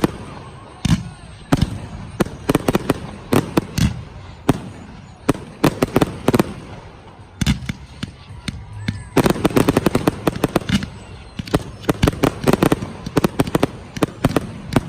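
Fireworks display going off: many sharp bangs in quick, irregular succession, with dense volleys in the second half.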